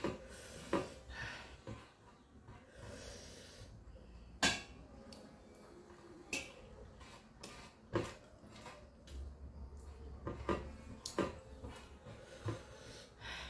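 Fingers mixing rice on a metal plate: scattered sharp clicks and taps against the plate, about eight in all, over a low background of breathing and mouth sounds.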